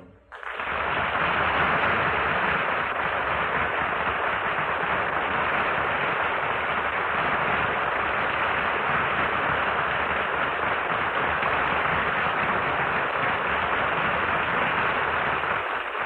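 Studio audience applauding steadily on an old radio broadcast recording, rising within about half a second and holding at an even level.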